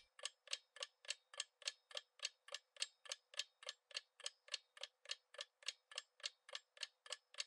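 Countdown-timer sound effect of a quiz: a clock ticking steadily at about three and a half ticks a second.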